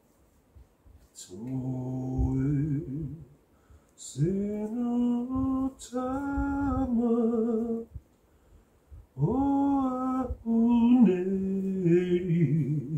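A man's voice singing unaccompanied: several phrases of long held notes with vibrato, separated by short pauses.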